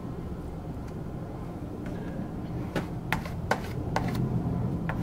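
Bondo body filler being spread over scratches on a car fender: a few short, sharp scraping strokes from about halfway in, over a steady low hum.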